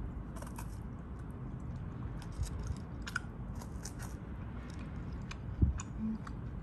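Close-up crunching and chewing of a Ferrero Rocher chocolate, its crisp wafer shell and hazelnut crackling in small irregular snaps, with a dull thump about five and a half seconds in.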